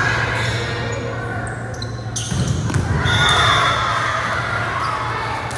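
Echoing gymnasium sound during a volleyball match: sharp court noises from the ball and shoes on the hardwood floor, with players' and spectators' voices swelling about three seconds in.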